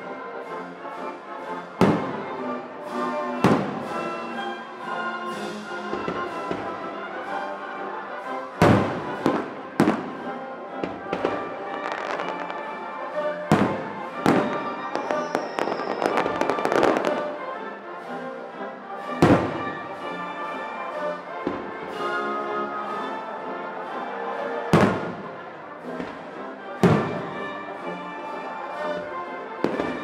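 Aerial fireworks shells bursting with sharp bangs every few seconds, over music that plays throughout.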